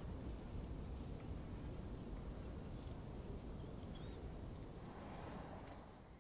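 Forest-edge outdoor ambience: a low steady rumble with scattered short bird chirps, fading out at the end.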